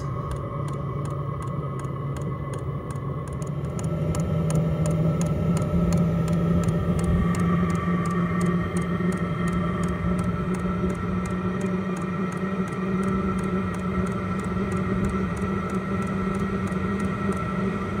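Calory diesel parking heater in its startup cycle. Its blower fan hums and rises in pitch about three to four seconds in, then runs steadily, over the even clicking of its fuel pump that is part of the startup process.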